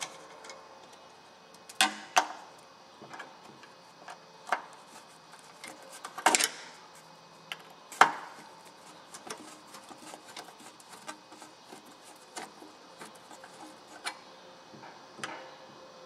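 A screwdriver working the screws out of a metal cupola window track: scattered sharp clicks and taps of the tool against the screw heads and metal. A few louder knocks come about two, six and eight seconds in.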